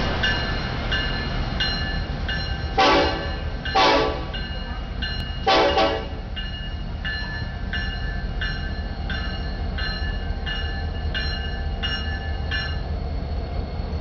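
Ferromex diesel freight locomotives passing at a grade crossing: the lead unit's air horn sounds three short blasts a few seconds in, the last a little longer, over the steady low rumble of the diesel engines. A crossing warning bell rings throughout at about three strokes every two seconds, stopping shortly before the end.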